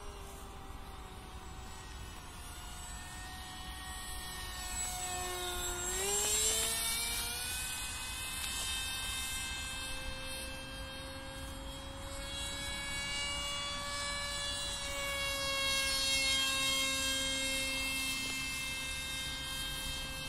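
Brushless electric motor (2212, 2200kV) and pusher propeller of an RC model jet flying, a steady whine with many overtones. Its pitch dips and then climbs sharply about six seconds in as it passes close, and it swells again around sixteen seconds.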